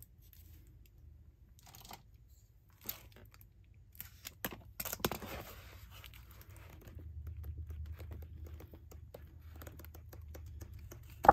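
Packaging around a pack of cardstock being handled and opened: scattered rustling, crinkling and tearing, busiest about halfway through. A single sharp knock near the end is the loudest sound.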